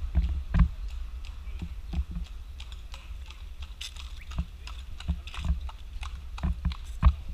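Horse's hooves clip-clopping on an asphalt road as a horse-drawn carriage walks past, a quick uneven series of sharp clicks.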